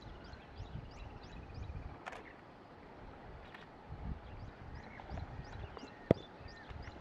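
Outdoor wildlife ambience: a steady run of short, high rising chirps about three a second, over faint low rumbles, with a sharp click about six seconds in and a weaker one about two seconds in.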